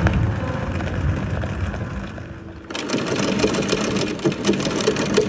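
A low rumble, then from about halfway in an electric anchor windlass hauling the anchor chain aboard, a rapid mechanical clatter of chain links running over the gypsy.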